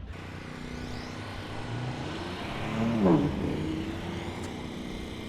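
A motor vehicle passes by, its engine hum rising to a peak about three seconds in and dropping in pitch as it goes past.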